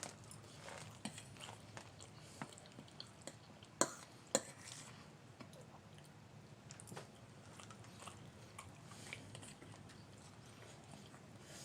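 Quiet eating sounds: a person chewing and biting food, with scattered small clicks and two sharper clicks about four seconds in.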